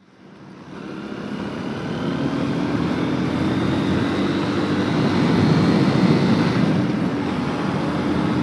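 Honda XR125L motorcycle's single-cylinder engine running steadily while riding, with wind rushing past, fading in over the first couple of seconds.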